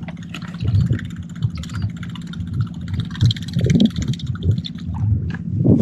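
Boat motor running steadily with a low hum, with irregular low knocks over it.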